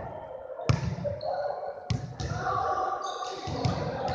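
Basketballs bouncing on a hardwood gym floor, with two sharp bounces about one and two seconds in, amid short high sneaker squeaks and players' voices.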